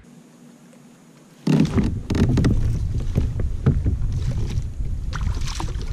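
A hooked largemouth bass splashing at the surface beside a kayak as it is brought in, with water slapping and knocks against the hull. The sound starts suddenly about a second and a half in, after a quiet start.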